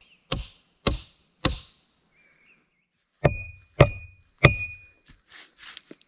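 Six sharp blows on the wooden log frame of a dugout, in two sets of three about half a second apart; the later three carry a short metallic ring. Soft scuffing follows near the end.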